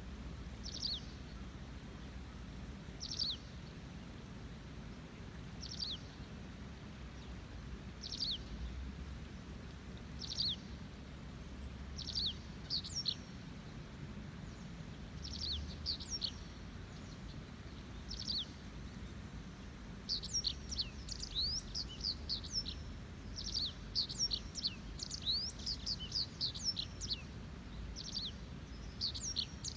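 Small songbird calling short, high, downward-sliding notes about every two and a half seconds, breaking into a rapid flurry of many chirps in the last third, over the low steady rush of a river.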